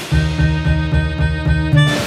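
Background music with a steady bass beat of about four beats a second under sustained held notes.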